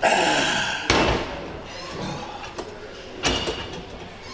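Leg extension machine worked through reps: metal clanks from the weight stack, two sharp ones about two and a half seconds apart, after a loud, noisy first second.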